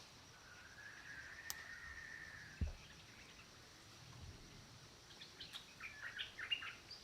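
Faint forest birdsong over a steady high insect drone: a long, even note in the first half, then a run of short chirps in the second half. A single soft low thump comes about two and a half seconds in.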